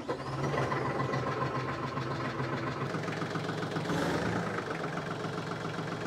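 TYM 2515 compact tractor's diesel engine running at a steady idle, just after it has started.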